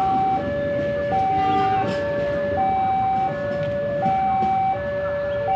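Electronic two-tone warning siren alternating steadily between a higher and a lower tone, each held for a little under a second, over a background rumble of engines and traffic.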